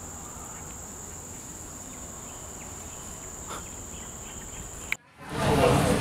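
Steady high-pitched drone of forest insects over faint outdoor background. It cuts off suddenly about five seconds in, giving way to indoor chatter.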